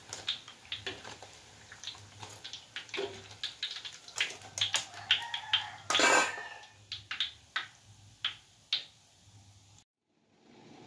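Irregular sharp clicks and clinks of metal tongs and a wire mesh strainer against a wok as fried risoles are lifted out of the oil, with a longer scrape about six seconds in. The sound cuts off abruptly shortly before the end.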